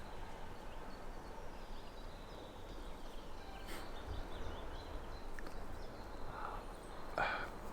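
Quiet outdoor ambience: a steady low background hiss and rumble with a few faint bird chirps.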